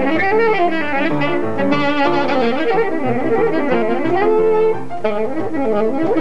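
Saxophone playing a melody with vibrato over upright piano accompaniment.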